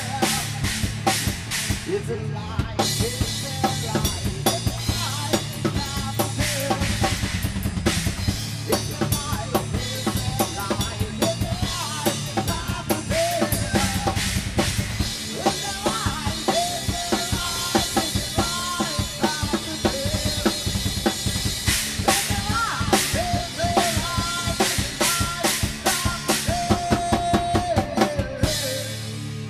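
Live rock band playing: drum kit with snare, kick and cymbals driving a steady beat under an electric bass line, with a wavering melody line above. The cymbals drop out just before the end.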